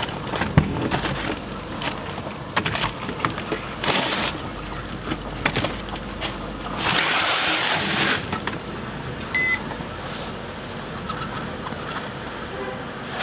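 Clay-coated beggar's chickens being shifted and turned on metal baking trays in a deck oven: scraping and knocks of baked clay against the trays, turned over partway through the bake so both sides cook evenly. A short high beep sounds about nine seconds in.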